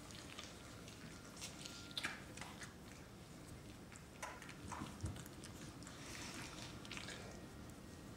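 Great Dane puppies mouthing and chewing on their mother: faint, scattered wet smacks and small clicks, a little louder about two seconds in and again about five seconds in.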